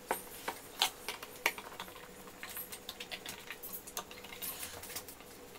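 Small clicks and taps of machine screws being set into holes in a sheet-goods router-table top and hand-tightened with a screwdriver. A few sharp clicks come in the first second and a half, followed by a patter of faint ticks.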